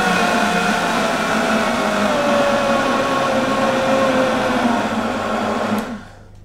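Optimum 9900 high-speed blender running, blending peeled bananas into a thick crepe batter while the tamper is worked in the jug; its whine sinks slowly in pitch. It is switched off about six seconds in and the motor cuts out abruptly.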